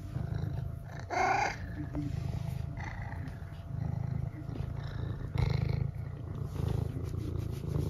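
Long-haired tabby cat purring steadily, with two short meows over the purr, about a second in and again about five and a half seconds in.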